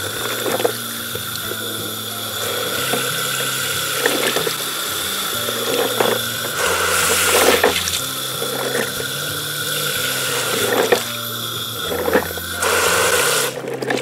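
A stream of water pouring steadily over a plastic toy garbage truck's raised bin and splashing into a puddle below, louder for a moment around the middle.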